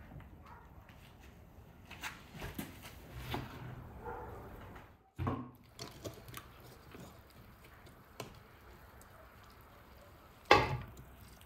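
Metal tongs clinking against a metal cauldron while lifting boiled beef hooves out of broth, with scattered light knocks and dripping. About ten and a half seconds in comes a sharp clatter, the loudest sound, as a hoof is set down in an enamel bowl.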